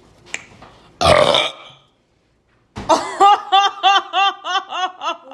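A person's loud, short burp about a second in. After a brief pause comes a run of high-pitched laughter, about three laughs a second.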